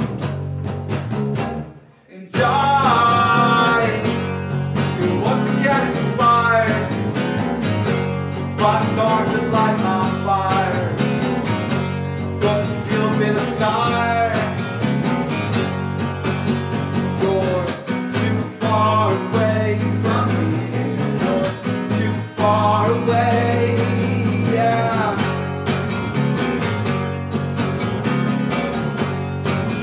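Acoustic guitar and electric bass playing a song together, with a man singing over them. The music briefly cuts out about two seconds in, then picks up again.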